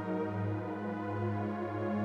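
Background music: a soft, sustained synthesizer-style ambient track with held low notes.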